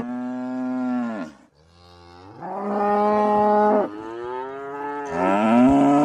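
Cattle mooing: about four long moos one after another, each dropping in pitch as it ends.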